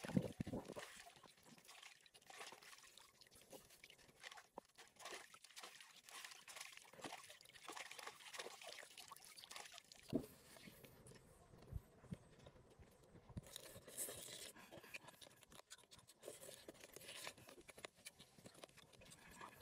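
Faint splashing and sloshing as lettuce leaves are swished and rinsed by hand in water. About halfway through this gives way to a person chewing food.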